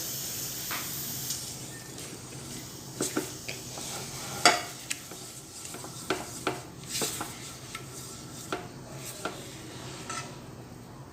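Butter and flour being stirred together in a hot pan to make a roux, sizzling steadily, with irregular scrapes and clinks of the spoon against the pan.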